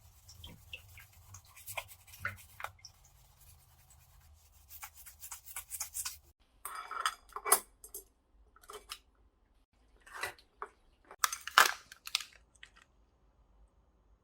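Irregular short scrapes and clicks of small objects being handled, in uneven clusters, with a few sharper, louder ones near the middle and about two-thirds through.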